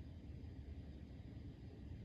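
Quiet room tone: a faint, steady low rumble and hiss with no distinct sounds.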